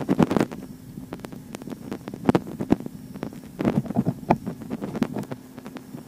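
Steady low electric hum of the fuel pump running under scan-tool command, with scattered clicks and knocks from handling around the engine bay.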